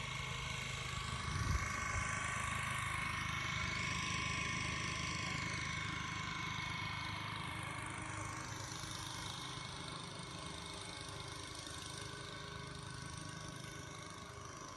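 An engine running steadily, loudest a couple of seconds in and then slowly fading as it moves away.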